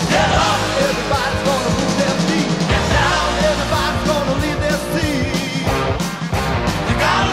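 Rock song with a lead vocal over drums and bass.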